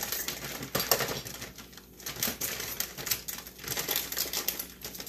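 Plastic bag of frozen cut okra crinkling and rustling as it is handled and cut open with scissors, with many irregular small clicks and snips.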